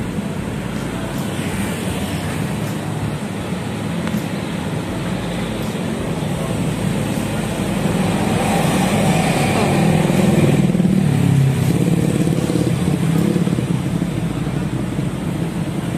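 Busy street traffic: cars and motorcycles running past on the road, swelling for a few seconds about halfway through as vehicles go by close.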